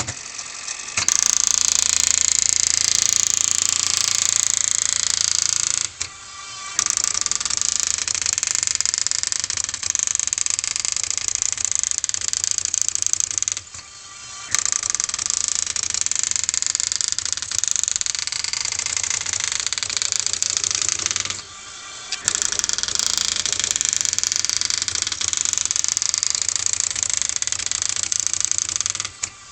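Tandy TRS-80 DWP-410 daisy wheel printer printing its built-in self-test: a continuous rapid clatter of characters being struck, starting about a second in and broken by short pauses roughly every eight seconds.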